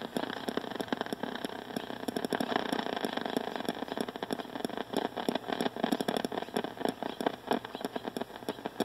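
Ultrasonic leak detector's output played through a speaker: a ragged, fluttering hiss of R-410A escaping from a gap left in the solder at the bottom of a joint, with rapid irregular ticking over it that comes from interference from a phone.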